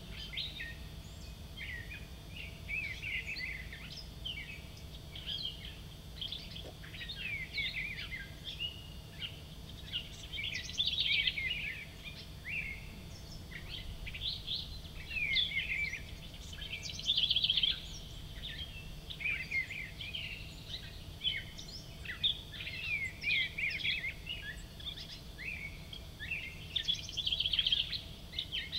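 Several songbirds singing and chirping continuously, their short chirps and trills overlapping, a little louder now and then, over a steady low rumble.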